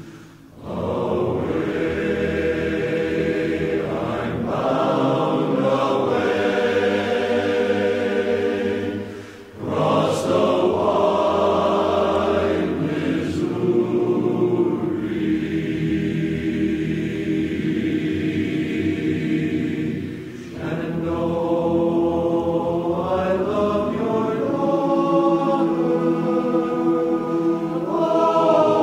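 Choir singing slow, sustained phrases as background music, with short breaks between phrases about nine and about twenty seconds in.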